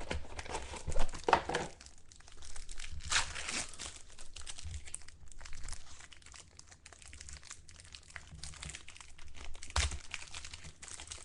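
Trading-card pack wrappers crinkling and being torn open, with cards handled, in irregular rustles that are louder in the first second or so, about three seconds in, and near the end.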